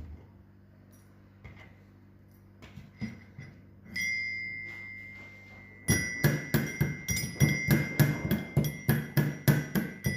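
Pestle pounding cloves in a metal mortar (mehraz): one ringing strike about four seconds in, then steady pounding from about six seconds in, about three to four blows a second, each blow ringing.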